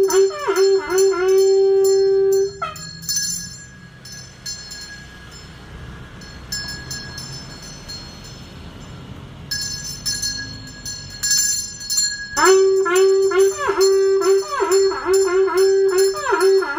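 A Taoist priest chanting in long, wavering sung tones through a microphone, while a small metal ritual hand bell is rung in quick repeated strokes. The chanting stops about three seconds in and starts again about twelve seconds in; the bell pauses for a few seconds in the middle.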